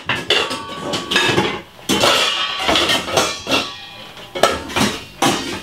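Glass mixing bowls and kitchenware knocking and clinking on the counter as a larger bowl is fetched and set down, a series of sharp clinks and knocks.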